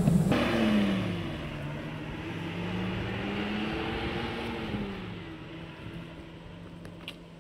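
Diesel route bus pulling away from the stop: its engine note rises, drops as it changes gear, then holds steady while fading into the distance.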